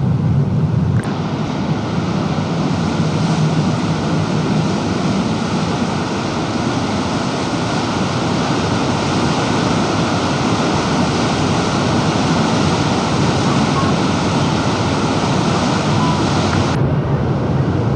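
Steady rushing and churning of a passenger boat's propeller wash and stern wake, mixed with wind on the microphone, over a low engine hum. The rush starts abruptly about a second in and cuts off near the end.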